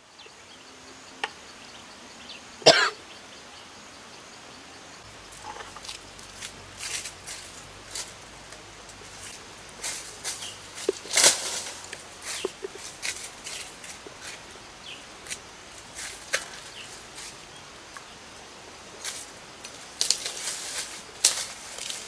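Dry leaf litter and twigs crackling and snapping as someone walks barefoot and handles dry sticks: scattered crackles throughout, with a loud short sound about three seconds in and another about eleven seconds in.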